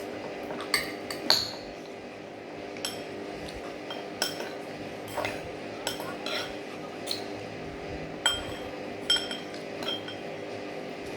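Cutlery clinking against plates and dishes during a meal: about a dozen sharp, irregular clinks, some with a brief ring, the loudest about a second in, over a steady low hum.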